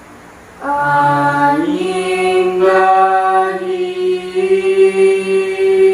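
Unaccompanied group singing of Javanese tembang macapat Pangkur, men's and women's voices together an octave apart. The singing enters about half a second in on a low held note, steps up in pitch about a second later, and carries on in long drawn-out melismatic notes.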